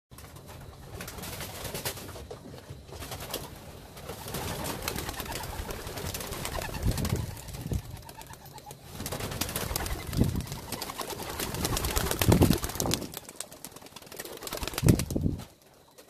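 A flock of racing pigeons in flight: a dense, rapid clatter of wingbeats that swells several times and cuts off suddenly just before the end.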